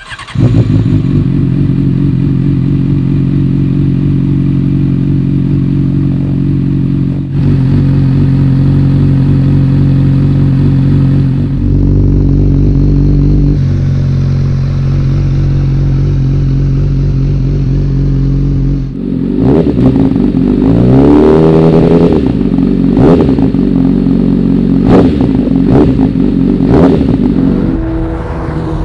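Honda CBR600F inline-four with decat downpipes and an Akrapovic exhaust starting up and idling steadily. After about 19 seconds it pulls away, the revs rising and dropping several times as it accelerates through the gears.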